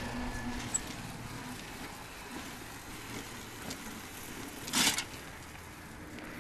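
A small engine running steadily, with a short burst of noise about five seconds in.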